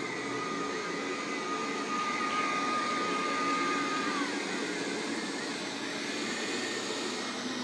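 Robot vacuum cleaner running with a steady whir, a high whine from its motor dropping away about four seconds in.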